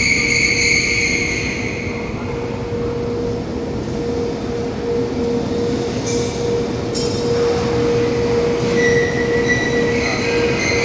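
Steady mechanical din of a pipe-fabrication workshop: machinery running with a constant hum and rumble. A high whine fades out about two seconds in, and a fainter one comes in near the end.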